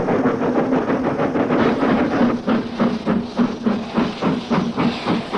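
Steam locomotive chuffing, its exhaust beats blurred at first and then coming clear and regular at about three a second from about two seconds in.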